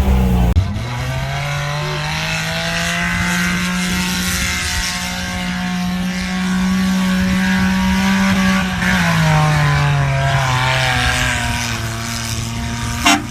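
Mitsubishi Minicab mini truck's small three-cylinder engine running under load off-road. Its pitch rises over the first few seconds, holds, then drops back about two-thirds of the way through. A short, loud toot of its train horn comes near the end.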